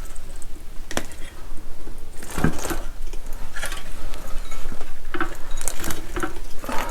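Wiring loom of a motorcycle being pulled and worked loose by hand: scattered sharp clicks and short rustling scrapes of wires and connectors.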